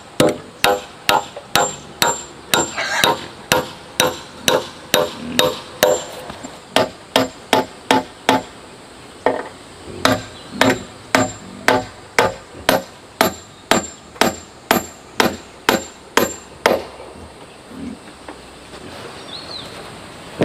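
A hammer driving a nail into a log fence rail: steady blows about two to three a second, each with a short metallic ring, with a brief break about halfway. The hammering stops a few seconds before the end.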